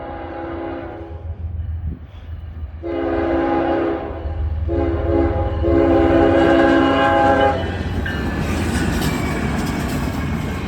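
Norfolk Southern locomotive's air horn sounding the grade-crossing signal. A blast ends about a second in, then comes a long blast, a short one and a final long one. After the horn stops, the train passing at speed fills the rest with a steady rush and wheel clatter.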